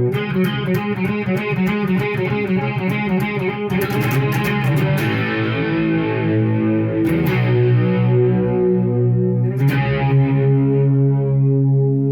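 Electric guitar through a Marshall MG100HFX amp head with crunchy distortion, playing a hard rock riff: quick picked notes for the first few seconds, then ringing chords, with a new chord struck near the end.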